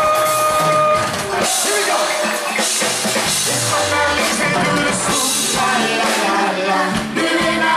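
Live band playing an upbeat dance-pop song with a drum-kit beat. A single held note sounds for about a second at the start.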